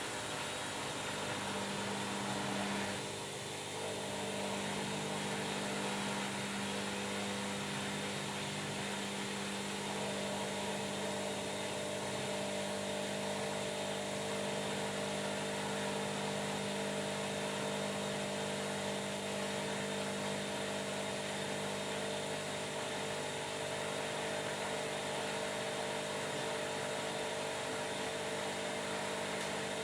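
Washing machine motor running steadily, a humming whine made of several held tones, with a brief dip about three seconds in.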